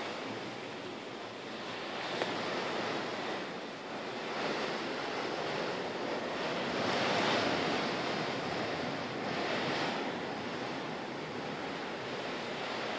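Storm wind and heavy rain beating against the windows: a steady rushing that swells and eases in gusts, loudest about seven seconds in.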